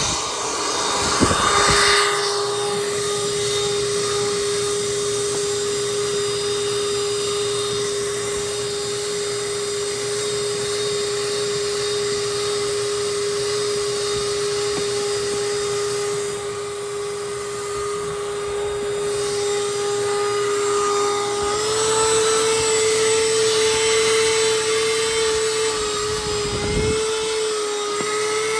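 Small shop vac running steadily as it vacuums cloth car seats and carpet: a constant motor whine over rushing air. Its whine steps up a little in pitch about three-quarters of the way through.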